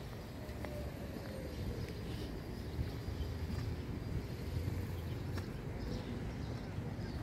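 City street ambience: a steady low rumble with scattered light taps and clicks.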